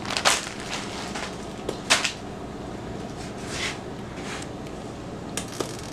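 About three light knocks of a spoon against a stainless steel soup pot on the stove, over a steady low background hum.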